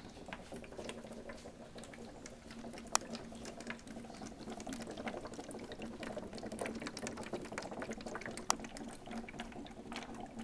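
Hydroxy (HHO) gas from a 63-plate series electrolysis cell bubbling steadily through water in a plastic jug, a busy crackling bubbling that shows heavy gas production at about 115 volts and 4.8 amps. Two sharp clicks come about three seconds and eight and a half seconds in.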